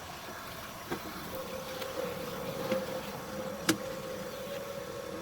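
A steady buzzing hum at one pitch sets in about a second in and holds, with a single sharp click a little past the middle and a few faint ticks.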